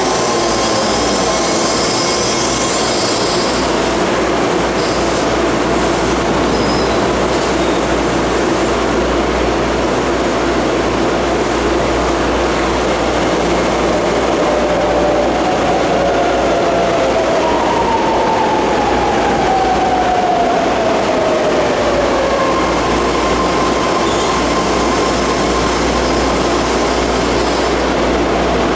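BART trains in the station: a loud, steady rumble and hum, with a whine falling in pitch at the start as the train slows to a stop. About halfway through, a second descending whine comes from another train braking into the station on the opposite track.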